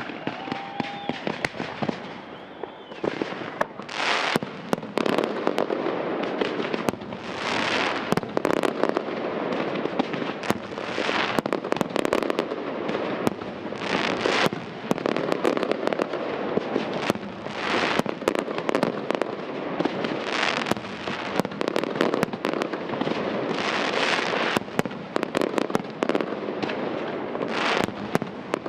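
Fireworks display: aerial shells and rising comets going off in a continuous barrage of bangs and crackling. A louder surge comes every three to four seconds.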